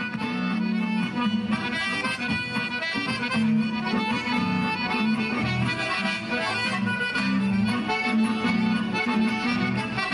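Accordion ensemble playing gaúcho regional folk music: several button accordions and a piano accordion, with a guitar, instrumental and steady.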